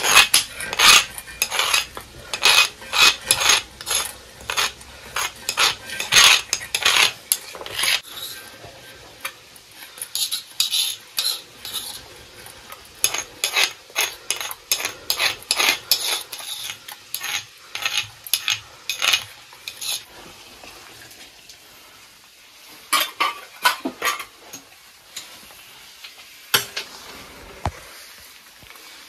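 Metal spoon stirring and scraping in a metal cooking pan, rapid runs of sharp clinks that thin out after about twenty seconds.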